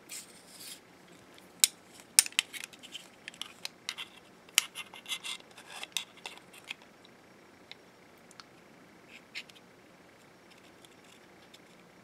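Digital caliper's steel jaw sliding along its beam with scraping and clicking as it is opened and set against an aluminium flashlight body. There is a dense run of scrapes and sharp clicks for about the first seven seconds, then a few sparse ticks.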